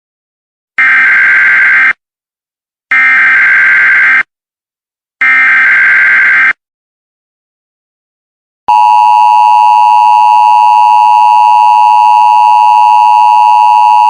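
Emergency Alert System tornado-warning signal: three bursts of the SAME digital header, each a buzzing data tone about a second long, with short gaps between them. After a pause of about two seconds, the steady two-tone EAS attention signal starts, about nine seconds in.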